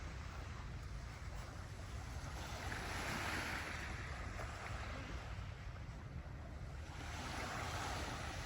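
Sea surf: waves washing in, swelling about three seconds in and again near the end, over a steady low rumble of wind on the microphone.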